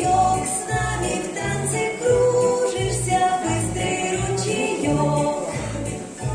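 Children's dance song backing track playing, with a steady bouncing bass beat about twice a second under a bright melody.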